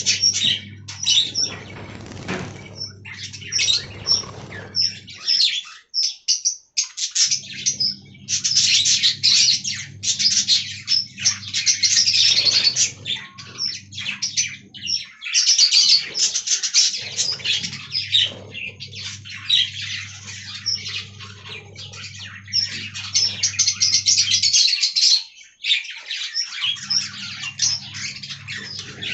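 Budgerigars chirping and warbling, a dense, rapid stream of high chirps from many birds at once, with a few short breaks. A steady low hum runs underneath in stretches.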